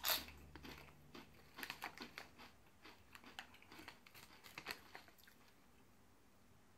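A crunchy Doritos corn chip snapping with one sharp bite at the start, then a few seconds of faint, crisp crunching as it is chewed, trailing off near the end.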